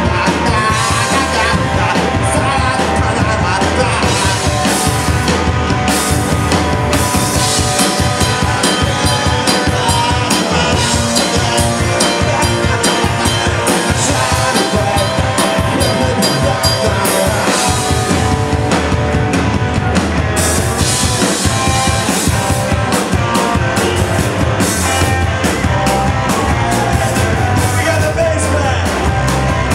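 Live rock band playing loud and steady: distorted electric guitars over a full drum kit with crashing cymbals.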